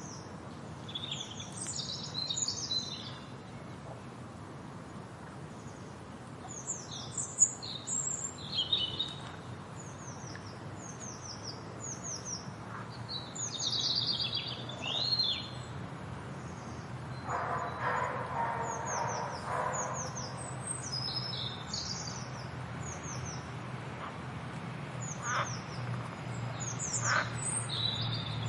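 A chorus of calling frogs: many short, high chirps that fall in pitch, repeated throughout. A buzzy trill sounds for a couple of seconds past the middle, and a steady low hum runs underneath.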